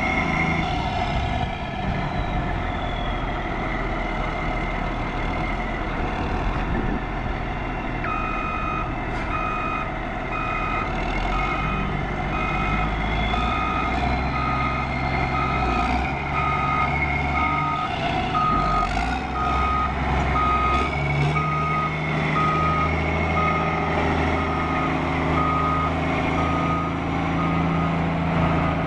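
2005 Caterpillar 160H motor grader's diesel engine running, with its backup alarm beeping steadily, about one and a half beeps a second, from about eight seconds in until near the end as the grader reverses.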